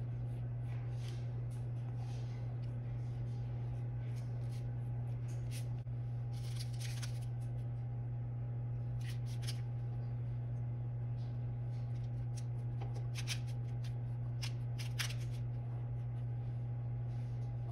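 Silicone pastry brush stroking oil onto breaded fish patties on parchment paper, giving soft scratchy brushing and paper rustles now and then, over a steady low hum.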